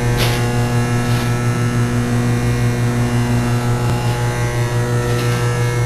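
Steady electrical mains hum from a 110 V DC battery charger on a 60 Hz supply: a low buzzing tone with higher overtones, with a few faint clicks.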